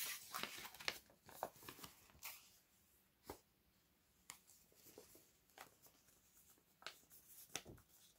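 Faint rustling and crinkling of a paper envelope being handled and folded: a dense run of paper crackles for the first couple of seconds, then single crisp crackles about a second apart.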